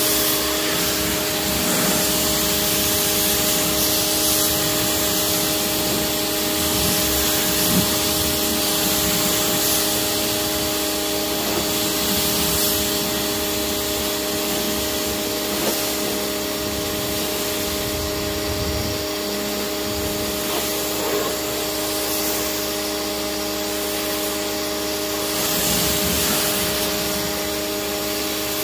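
PowRyte 3800R electric pressure washer running: the motor and pump give a steady hum while the water jet hisses against the car, rinsing off the soap.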